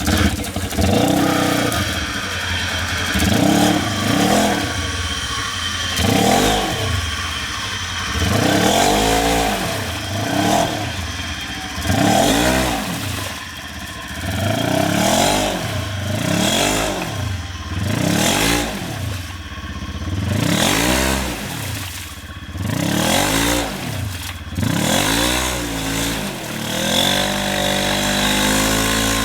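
Side-by-side UTV engine revved hard over and over, about once every two seconds, each rev rising and falling in pitch, as the machine is rocked to work through a deep mud rut.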